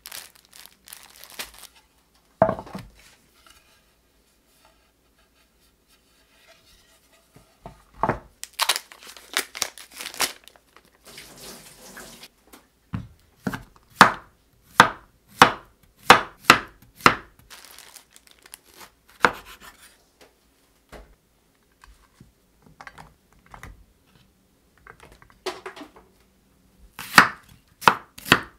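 Chinese cleaver slicing zucchini and onion on a camphor-wood cutting board: sharp knocks of the blade hitting the board in runs, about two a second at the steadiest. A short spell of plastic packaging crinkling and tearing comes before the cutting.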